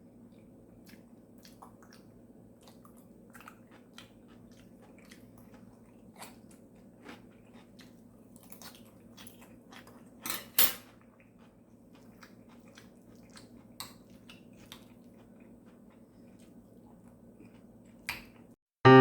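Quiet eating of shrimp fried rice: soft chewing with scattered small clicks and taps, the loudest about ten seconds in, over a low steady hum.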